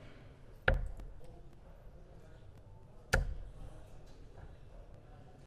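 Two steel-tip darts thudding into a Winmau Blade 6 bristle dartboard, one sharp hit under a second in and another about two and a half seconds later.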